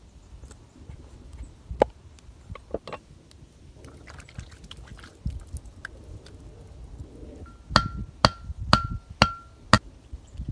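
Wood being struck with a tool: scattered knocks, then five sharp strikes about half a second apart near the end, four of them leaving a brief ringing tone.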